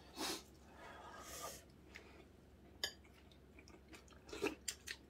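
Quiet eating at the table: faint chewing and soft noises, with a sharp clink of utensils on dishes nearly three seconds in and several small clicks near the end.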